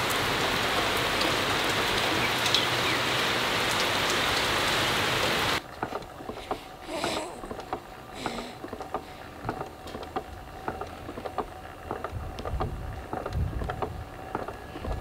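Steady rain falling on a swimming pool and paved patio, an even hiss that stops abruptly about five and a half seconds in. After it comes a quiet room with faint scattered ticks and rustles.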